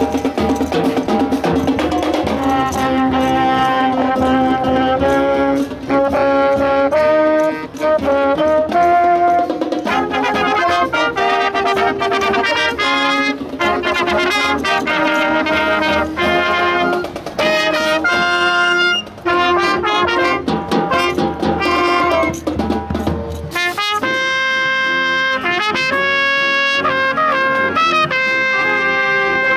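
Junior high school marching band playing: trumpets, trombones, saxophones and sousaphone over drums. A little before the end the music jumps abruptly to a new passage led by trumpets.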